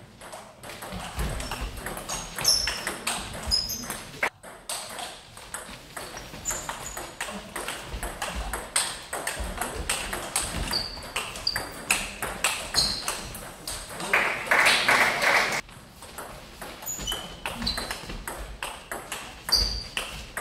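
Table tennis rallies: the ball clicking off the bats and the table in quick runs, with short high squeaks that fit sports shoes on a hall floor. About fourteen seconds in there is a loud, hissy burst lasting about a second and a half.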